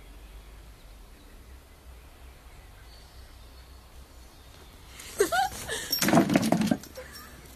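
A lurcher and a cat in a brief, loud face-off about five seconds in: a few short rising cries, then a harsh, noisy spell lasting about a second, after quiet room background.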